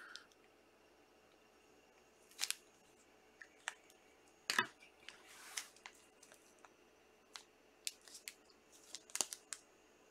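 Trading card foil packs and hard plastic card holders handled on a table: scattered short clicks and brief crinkles, the loudest about halfway through.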